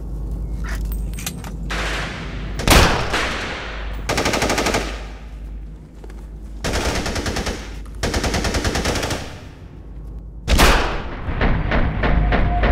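Rifle gunfire in a shootout. A single loud shot comes about three seconds in, followed by several bursts of rapid automatic fire, each about a second long. A heavy shot near the end leads into more rapid fire.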